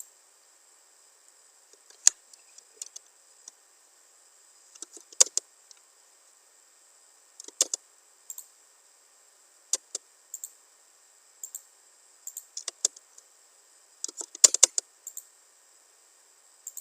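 Computer mouse and keyboard clicks, scattered sharp single clicks and short quick runs of clicks with pauses between them, the busiest cluster near the end, while lines are drawn and trimmed in AutoCAD.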